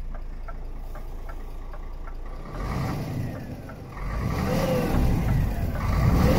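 Scania R500 truck's diesel engine revved twice from idle while standing still. A hazard-light relay ticks steadily at first, until the engine covers it about two and a half seconds in.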